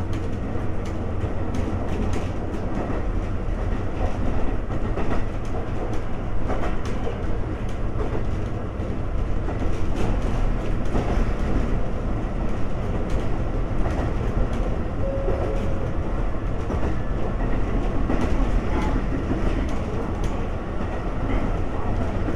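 A 1964-built ex-Tokyu 7000-series electric railcar (Konan Railway DeHa 7155) running along the line, heard from inside the car. There is a steady low rumble from the wheels and running gear, with clicks as the wheels pass over rail joints.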